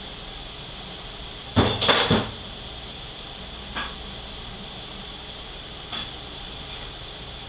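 Metal transmission parts knocking during the teardown of an automatic transmission's clutch drum: a quick cluster of clanks about a second and a half in, then two lighter single clicks, over a steady shop hiss.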